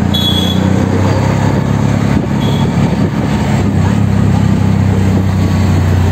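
Auto-rickshaw's small engine running steadily as it drives, a low drone heard from inside the open passenger cabin over road noise, with two brief high chirps early on and about halfway.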